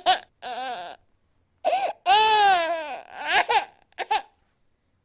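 Infant crying: a run of short, catching sobs with one longer wail about two seconds in that falls in pitch, ending in a couple of brief sobs and then stopping near the end.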